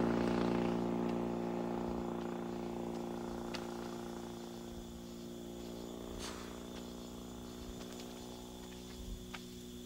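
Motorcycle engine running at a steady pitch, fading slowly as it moves off into the distance. Three faint short chirps sound about three seconds apart over the drone.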